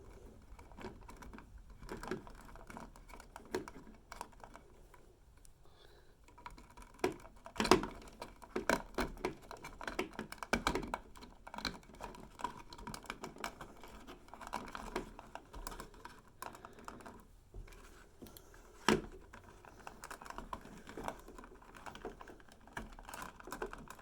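Irregular small clicks, scrapes and rattles of electrical wires being twisted together and handled at a wall switch box, joining the green ground lead to the bare copper ground. The clicks come thickest through the middle, with one sharp click about three quarters of the way in.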